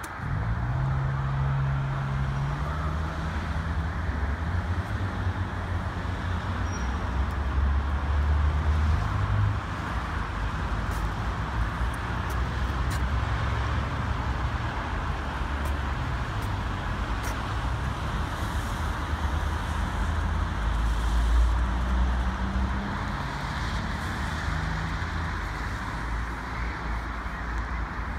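Steady city road traffic noise, a continuous rumble and hiss of passing cars that swells louder about a third of the way in and again about three-quarters of the way through.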